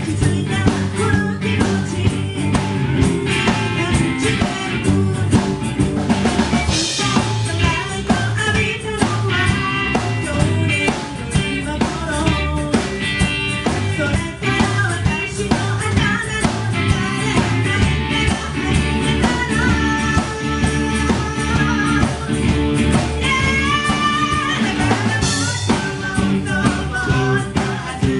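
Live rock band playing: drum kit and electric and acoustic guitars driving a steady beat, with singing.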